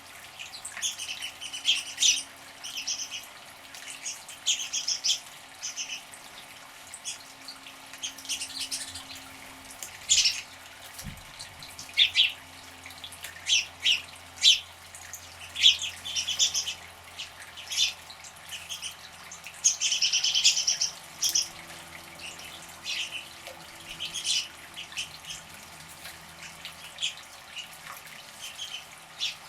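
Small birds chirping in many short calls, with water splashing as birds bathe in a bird bath.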